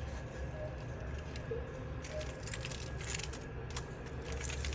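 Light, irregular clicking and rattling of small 3D-printed plastic parts being handled, over a steady low hum.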